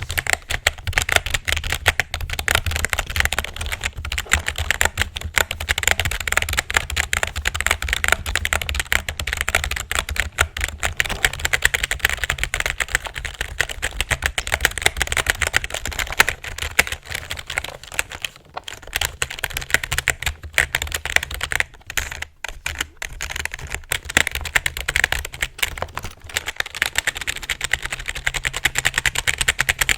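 Fast, continuous typing on a computer keyboard, a dense run of key clicks with a couple of brief pauses past the middle.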